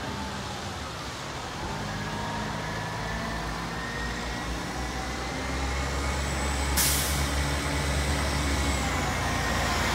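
Mack LE garbage truck's diesel engine running steadily, growing louder over the last few seconds. A short, sharp burst of air hiss about seven seconds in.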